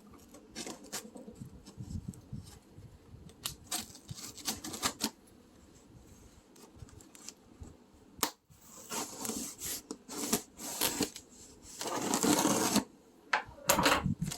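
Cardboard box being opened by hand: scattered taps, clicks and scrapes, a sharp snap about eight seconds in, then a longer stretch of cardboard scraping and rustling as the flaps are worked open.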